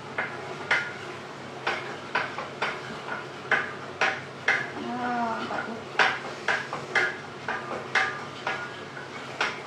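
Wooden spoon knocking and scraping against a stainless steel saucepan as a sauce is stirred: sharp knocks about twice a second.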